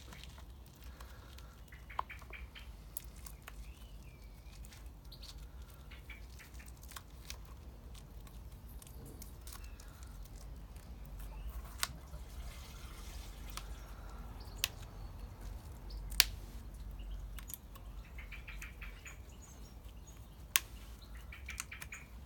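Quiet handling of a cricket bat handle and its fitted sensor mount: scattered sharp clicks and light taps over a low steady rumble.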